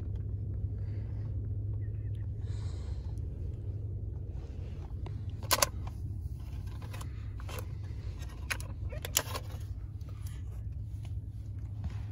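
Steady low rumble of a car's engine and road noise heard from inside the cabin, with a few sharp clicks, the loudest about five and a half seconds in.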